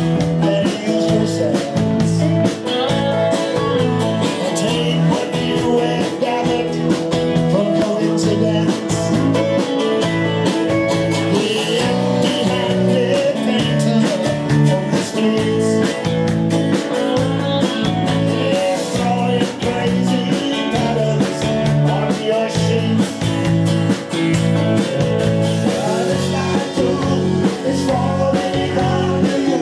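Live rock band playing a song: electric bass, electric guitar and drums with a steady beat, and singing.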